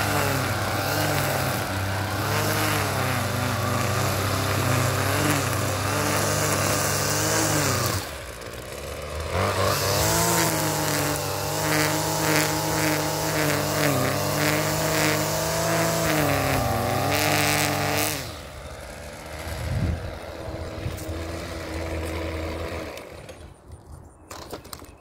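String trimmer engine running at high revs while cutting grass along a concrete edge, the pitch wavering as the throttle is worked. The revs dip briefly about eight seconds in and climb again, then drop to idle at about eighteen seconds, and the engine cuts off near the end.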